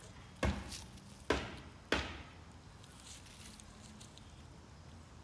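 Dry fallen leaves and grass crunching three times in quick succession, each crunch sharp and dying away fast, then a faint rustle.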